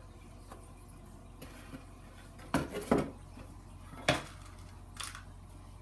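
Foam-core model box being set down on a cutting mat and handled, making about four short, sharp knocks and clatters in the second half.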